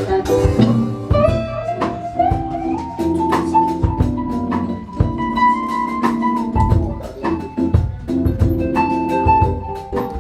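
Live band playing instrumental music: drum hits, bass guitar, and a lead line of held notes stepping upward in pitch, then falling back near the end.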